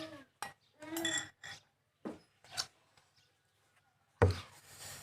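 Eating sounds in a mukbang: clinks of a dish and utensils, with scattered short clicks and a brief vocal sound about a second in. A sharp knock just after four seconds is the loudest sound.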